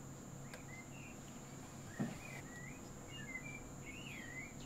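Faint bird song: a run of quick warbling chirps and sweeping whistles. A soft click comes about half a second in, and a short dull knock about two seconds in.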